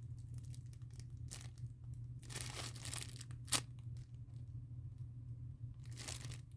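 Soft crinkling and rustling as a foam squishy toy is squeezed and handled, in a few short bursts with one sharper crackle about halfway through, over a steady low hum.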